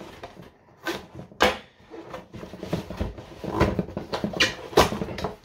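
Cardboard box being pried and torn open by hand: ragged tearing and scraping of cardboard with several sharp rips and knocks, the loudest about a second and a half in and near the end.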